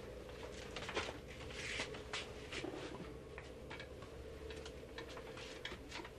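Scattered light clicks, knocks and rustles of clothes and small objects being handled, over a faint steady hum.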